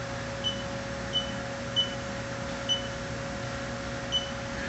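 Short electronic key beeps from a CNC machine's control panel, five of them at uneven intervals as buttons are pressed, over a steady machine hum.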